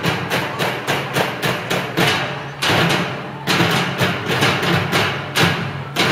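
Percussionists drumming a fast, even beat on plastic barrels, about five strikes a second, with a short break near the middle before the beat picks up again.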